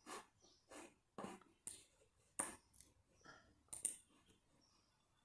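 Faint, irregular clicking at a computer, about a dozen short clicks a fraction of a second apart.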